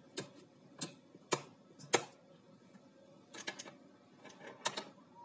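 Small metal toggle switches on a prop bomb case being flipped by hand: four sharp clicks about half a second apart, then a few quicker clicks near the end.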